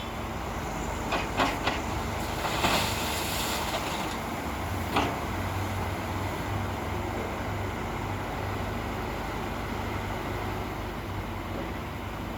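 Heavy diesel machinery running with a steady low rumble. A few sharp metallic knocks come in the first few seconds, and a short burst of hiss about three seconds in.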